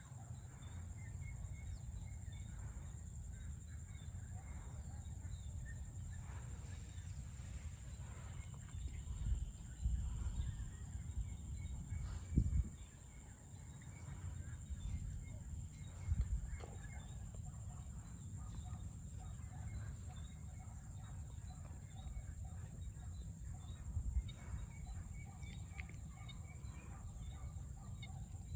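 Chickens clucking in the background over a steady high-pitched hiss, with a few dull low thumps about midway.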